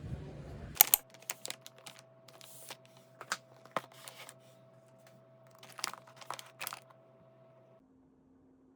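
Irregular sharp clicks and short rustles, a few a second, over a faint steady hum; the clicks stop about seven seconds in.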